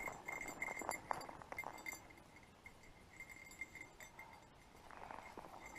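Small bell on a dog's pack jingling as the dog trots along, the ringing thinning out in the middle and picking up again toward the end. Footsteps crunch on a dirt trail over the first two seconds.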